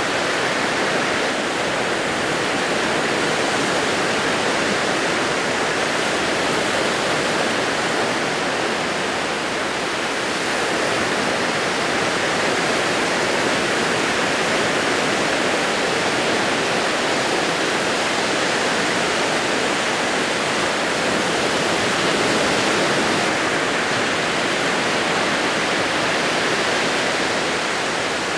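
Small waves breaking and washing up a sandy beach: a steady rushing hiss of surf.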